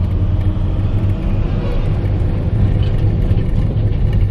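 Steady low rumble of a Maruti Suzuki XL6's engine and tyres heard from inside the closed cabin, the car creeping along in heavy traffic.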